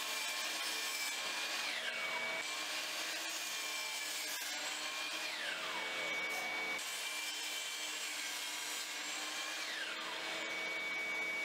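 DeWalt 12-inch sliding compound miter saw cutting 2x4 lumber, with a shop vacuum running steadily on its dust port. Three times the saw motor's high whine falls in pitch as the blade spins down between cuts, then comes back up.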